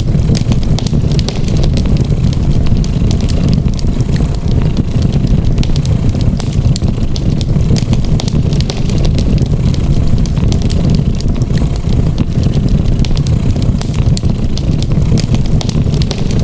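A cat's purr as a steady low rumble, with a wood fire crackling and popping in short, scattered clicks over it.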